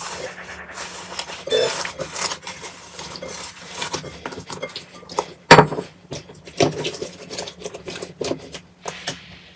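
Slime being squeezed and poked by hand, making a quick irregular run of wet clicks, crackles and pops, the loudest pop about five and a half seconds in.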